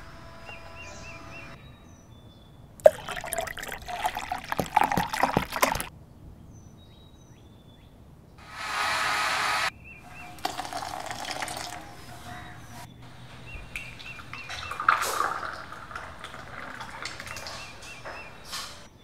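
Liquid pouring and splashing for a few seconds, then a kitchen blender runs in one short burst of just over a second, stopping suddenly, followed by more pouring and splashing. Birds chirp faintly in the background, most clearly at the start.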